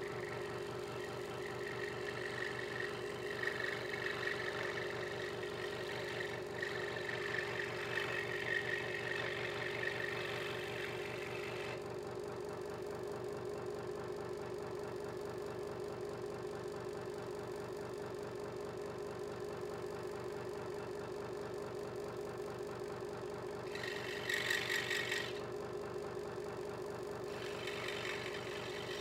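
Hegner Multicut 2S scroll saw running with a steady mechanical hum as its blade cuts a small piece of wood. The sawing noise of blade on wood is heard for the first twelve seconds or so, stops, then comes back in two short spells near the end.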